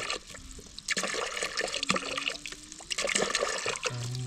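Water trickling and splashing, with many small irregular clicks and splashes.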